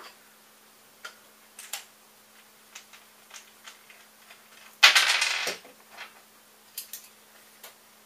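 Scattered light clicks and taps of small tools and hardware being handled on a desk, with one louder clatter lasting under a second about five seconds in.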